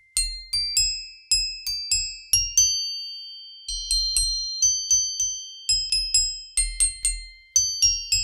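Computationally tuned metallophone of flat metal animal-shaped plates, struck one after another with a ball-headed mallet to play a melody. Each strike gives a clear ringing, bell-like note over a short low knock, two to three notes a second, with a pause of about a second midway.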